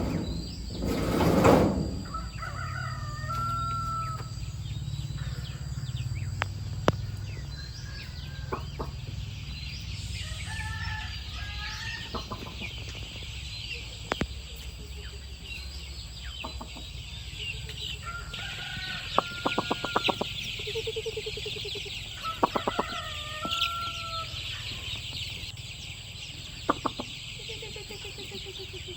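Farm chickens calling, with hens clucking and a rooster crowing several times. A steady high hiss joins about nine seconds in, with a few sharp clicks.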